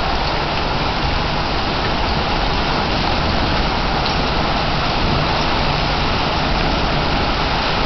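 Torrential rain falling steadily in a severe thunderstorm, an even, unbroken downpour on grass, puddles and paving.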